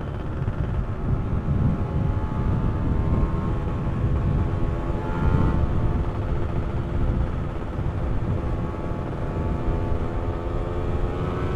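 Two-stroke motorcycle engine running steadily while riding, its pitch drifting slowly up and down, over a heavy low rumble.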